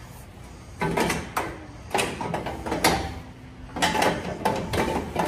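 Irregular metallic clanks and scrapes in three clusters, from steel long-tube headers and tools being worked against the engine and chassis while the headers are forced into place.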